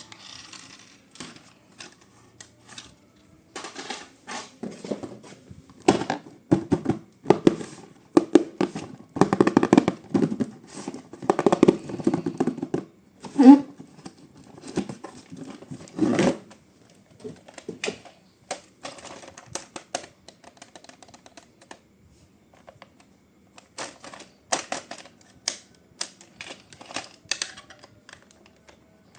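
A remote-control toy and its packaging being handled: irregular clicks, taps and rattles, busiest in the middle and sparser near the end.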